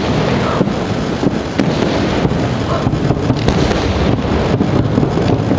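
Aerial firework shells bursting in quick succession, a steady run of bangs and cracks over a continuous low rumble.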